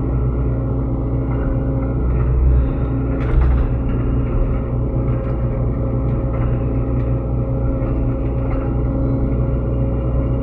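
Diesel engine of a SANY SY75C mini excavator running steadily under working load, with a brief clatter about three seconds in.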